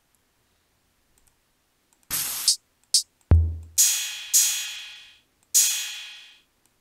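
Drum samples previewed one after another in FL Studio's browser. After a short noisy hit, a click and a deep, short drum hit, an 808 crash cymbal sample plays three times, each hit ringing out and fading away.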